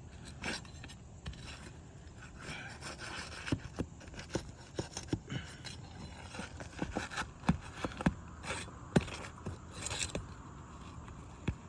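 A metal tool scraping and clicking against asphalt roof shingles as roofing nails are worked loose from under the shingle above. The scratching is steady, with many short, irregular sharp clicks and knocks.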